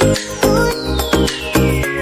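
Electronic dance music with a steady beat, a deep synth bass and a long synth sweep gliding downward in pitch.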